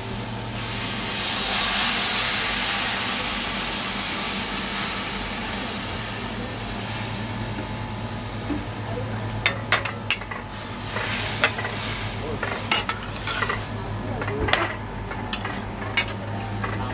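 Water poured into a hot kadhai of spiced bottle gourd pieces sizzles, the hiss swelling over the first two seconds and then slowly dying down. From about halfway on, a metal spatula clinks and scrapes against the pan as the vegetables are stirred.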